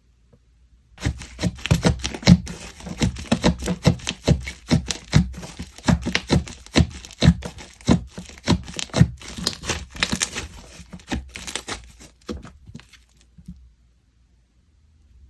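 Hands working a milk-scented slime, giving a dense run of sticky clicks, crackles and small air-pocket pops. It starts about a second in and stops near the end.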